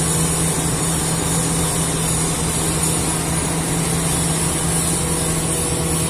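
Crawler bulldozer's diesel engine running at a steady note as the machine pushes through mud.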